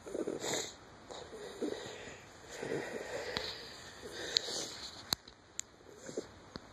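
Close, breathy sniffles and snuffling breaths in short bursts about a second apart, followed by a few sharp clicks of the phone being handled near the end.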